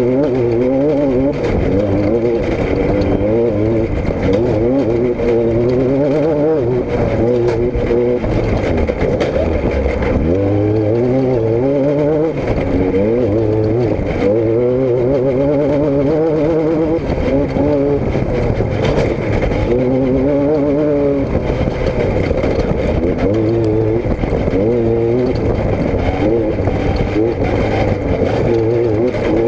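Car engine running, its pitch rising and falling every second or two as engine speed changes.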